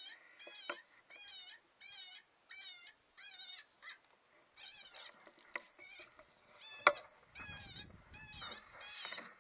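A predator call keeps repeating a short, wavering animal distress cry about twice a second. About seven seconds in, a single sharp rifle shot cracks out, far louder than the call, and a low rumble trails after it.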